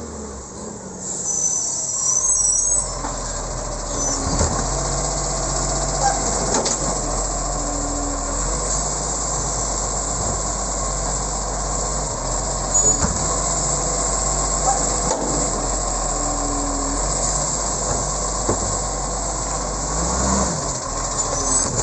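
Side-loader garbage truck's diesel engine running, with its hydraulic lifting arm working: a steady mechanical drone with a few scattered clanks and knocks as bins are picked up and emptied.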